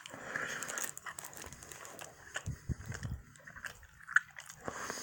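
Close-mouthed chewing and biting of a sausage McGriddle, with irregular small clicks and a sharper click about four seconds in.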